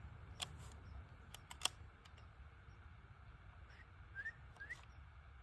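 A few sharp clicks early on, then two short rising chirps from a small bird, faint over a low wind rumble on the microphone.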